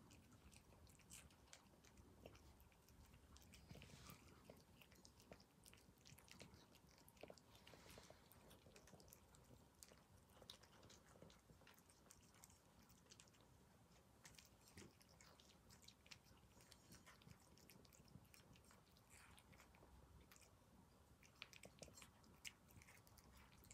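Two cats chewing and biting dried anchovies off a plate, a faint run of small irregular clicks and crunches.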